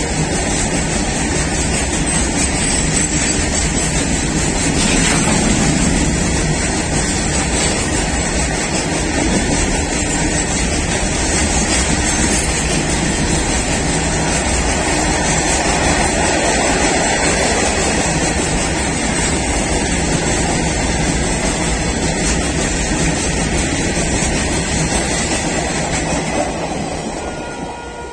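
Freight train of open-top steel wagons passing at close range: a steady, loud rumble and rattle of wheels on the rails, fading in the last second or so as the brake van at the tail goes by.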